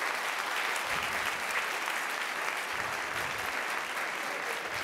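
Audience applauding, a steady clapping of many hands that holds at an even level.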